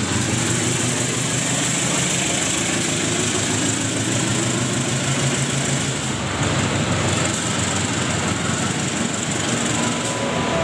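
Diesel-electric locomotive's engine running as it moves past close by. About six seconds in, its engine sound gives way to the steady rolling rumble of passenger coaches going by on the rails.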